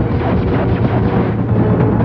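Cartoon space-battle soundtrack: dramatic orchestral music with pounding timpani over a dense, steady rumble of explosions.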